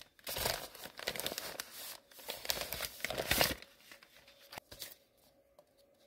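A kraft padded mailer envelope being ripped open and crinkled by hand: two long stretches of tearing, crackling paper, the second ending a little past halfway, then a few light handling clicks as it quiets down.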